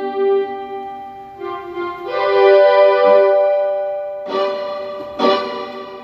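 Roland D-50 digital synthesizer playing a factory preset: held chords rich in overtones, with new notes struck about a second and a half in, around two seconds, and with a sharp attack just after four and five seconds.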